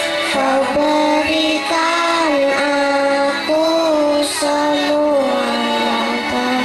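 Children singing a song over accompanying music, with long held notes.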